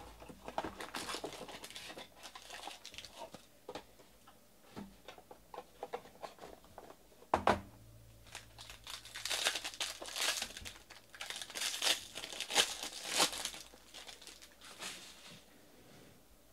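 Trading-card pack wrappers being torn open and crinkled by hand, in bursts, with one sharp thump about halfway through.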